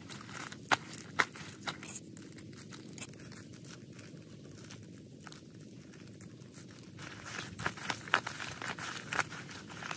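Hands rubbing salt and chili powder into skinned raw frogs on a banana leaf, with the leaf crinkling and rustling under them. There are a few sharp ticks in the first two seconds, and a busier stretch of crackling handling near the end.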